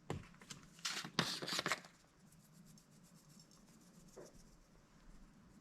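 Seasoning being shaken from a shaker onto fish fillets: a handful of quick scratchy shakes in the first two seconds, then only a faint hum with one light tick about four seconds in.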